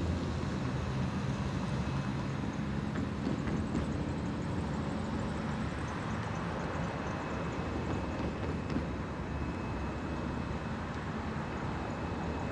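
Freight train of loaded gondola cars rolling along the track: a steady, even rumble of wheels on rail, with a faint steady high tone joining about halfway through.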